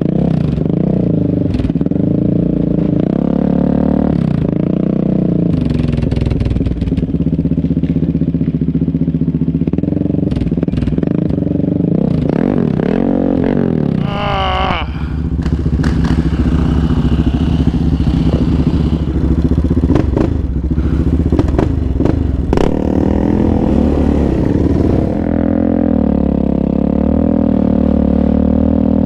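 Sport quad engine running and revving up and down as it crawls over a rough, rutted trail, with scattered knocks and rattles from the machine over the bumps. About halfway through the engine note briefly wavers up and down.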